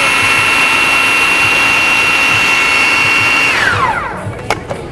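Food processor motor running at a steady high whine as it purees chickpeas and peanut butter powder into a flour, then switched off about three and a half seconds in, its pitch falling as it spins down. A couple of sharp clicks follow as the lid is handled.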